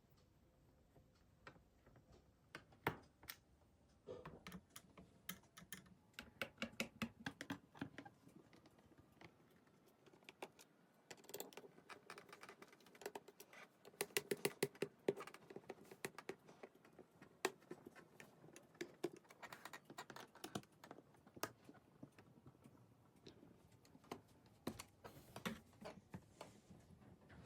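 Phillips screwdriver backing out the back-cover screws of a Dell Latitude 5400 laptop: rapid runs of light clicks and ticks in several bursts.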